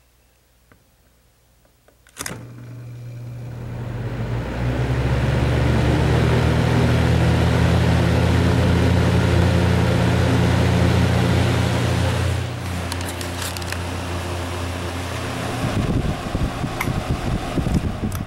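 Duracraft DB-10 box fan switched on with a click about two seconds in. Its motor hum and the rush of air from the blades rise as it spins up, and it then runs steadily on the low setting. The sound drops somewhat about twelve seconds in, and there are clicks and knocks near the end.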